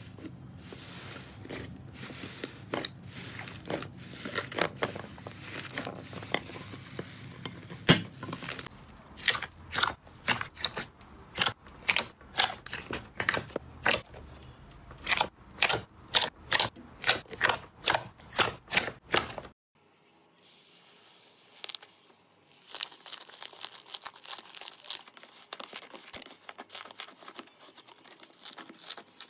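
Slime being squeezed and worked by hand, giving a run of sharp crackling pops, about one or two a second at first. After a short quiet gap about two-thirds of the way through, the crackling comes denser and lighter.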